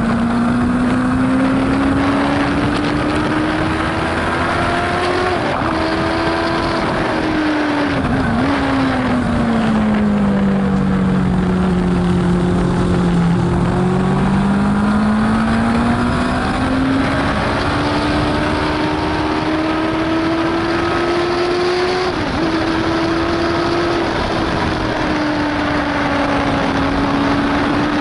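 Racing sidecar's engine heard from an onboard camera at speed. The note climbs over the first few seconds with a brief dip at a gear change, drops sharply about eight seconds in and stays low as it slows for a corner. It then climbs again, with another short shift dip about two-thirds of the way through, over a steady rush of noise.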